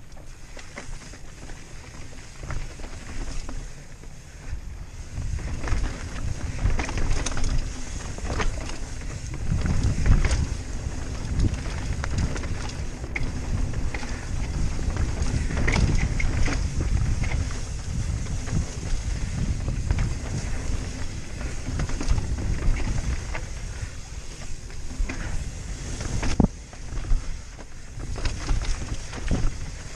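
Wind rumbling on a helmet camera's microphone over the rattle and knocks of a Rocky Mountain Slayer full-suspension mountain bike rolling down a rocky dirt trail, with tyres crunching over rock and gravel. There is a sharp knock about 26 seconds in.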